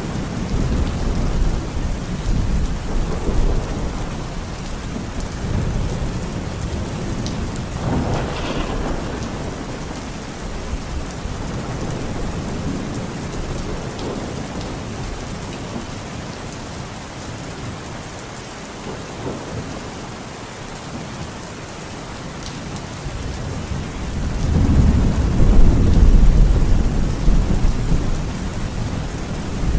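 Heavy rain pouring steadily, with thunder rumbling low underneath. The rumble dies down in the middle and swells to its loudest, longest roll near the end.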